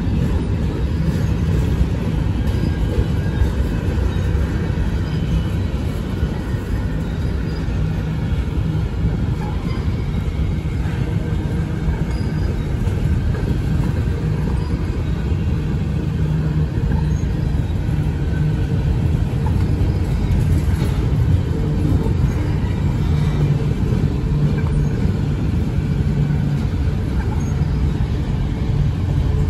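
Freight cars of a long manifest train rolling past close by, mostly covered hoppers: a steady low rumble of steel wheels on rail, with faint high squeals here and there.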